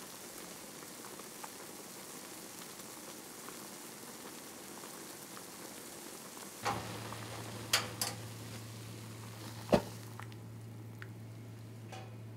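Liquid boiling in a metal pot, a steady bubbling hiss. About seven seconds in, a low steady hum sets in and a few sharp knocks follow, the loudest about ten seconds in, after which the bubbling is softer.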